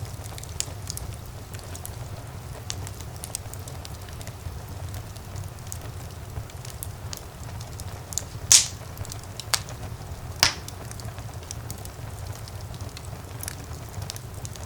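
Wood fire burning in a fireplace: a steady low rumble of flames with constant small crackles, and a few sharper pops of the logs about halfway through, the first of them the loudest.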